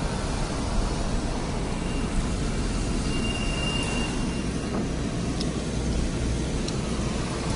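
Steady low rumble of a car's running engine and road noise heard from inside the cabin, with a brief faint high squeal about three seconds in.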